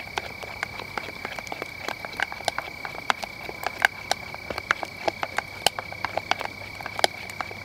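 Wood fire crackling with quick, irregular sharp clicks, over a steady high-pitched insect trill.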